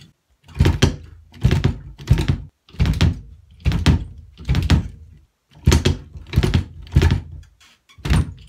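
Kick drum played with the heel-toe technique on a bass drum pedal: strokes come in quick pairs, the heel dropping onto the footboard for the first and the toes pushing down for the second, repeated steadily with a short break about five seconds in.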